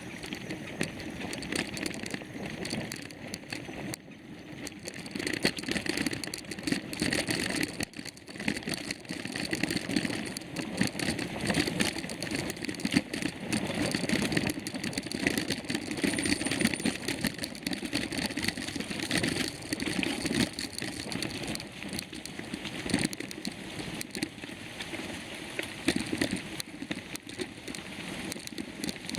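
Mountain bike riding over a rough dirt trail: a steady run of rattles and clicks from the bike over a constant rushing noise.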